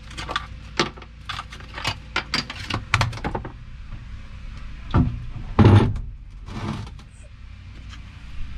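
A marine cranking battery being lifted out of its compartment by its plastic handle: a run of clicks and knocks from the handle and case, then a thump about five seconds in and a louder scuffing noise just after.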